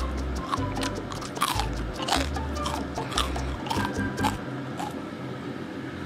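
Repeated crunchy bites and chewing of grilled jjondeugi, a chewy Korean starch snack that has turned crisp like a cracker, over background music.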